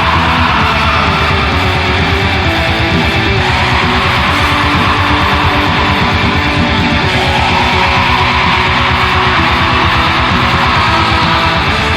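Black metal song: a dense, unbroken wall of distorted electric guitars over fast, evenly repeating drum beats, with a slowly rising and falling guitar line on top.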